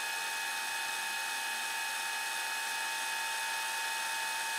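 Fast-forward sound effect: a steady high whine over hiss, holding at one pitch and cutting off just after the end.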